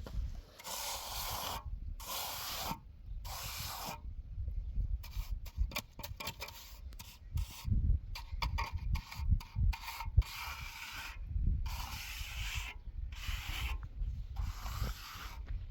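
Repeated rough scraping strokes, each lasting under a second with short gaps between them, mixed with scattered clicks and knocks over a low rumble.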